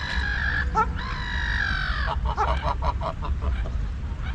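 Water birds calling: two long, harsh, drawn-out calls, the second sagging in pitch at its end, then a quick run of short notes at about six a second, over a steady low rumble.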